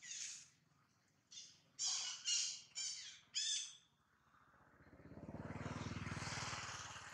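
A series of six short, high animal calls in quick succession over the first four seconds, then a low rumble that swells and fades over about three seconds.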